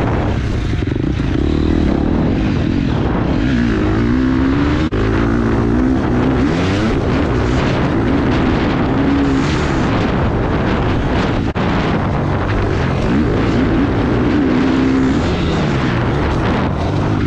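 Husqvarna FC four-stroke motocross bike engine ridden hard on the track, its note rising and falling over and over as the rider works the throttle through the gears.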